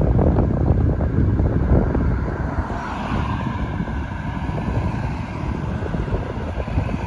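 Heavy truck's diesel engine running past, loud at first and then slowly fading away, with wind buffeting the microphone.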